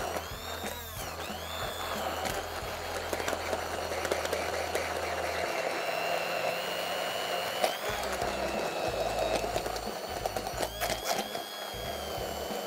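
Hand-held immersion blender running continuously in a plastic beaker, puréeing cooked potatoes with milk into a smooth cream. Its motor whine dips and rises at times as the load changes.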